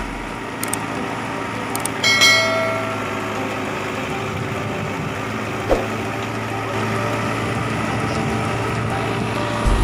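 Heavy diesel machinery running steadily, with one metallic clang that rings briefly about two seconds in and a sharp knock near six seconds.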